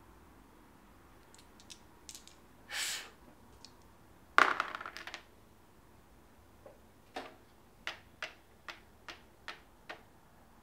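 Monopoly dice rattled in a hand and thrown onto the board, landing in one loud clatter that bounces out over about a second. Then a game token is tapped along the board's squares, seven sharp taps about two a second.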